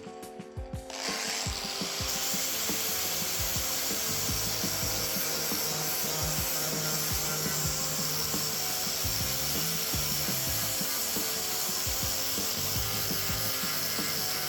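Power grinder grinding down fibreglass on a car body panel: a steady grinding noise that starts about a second in and keeps an even level.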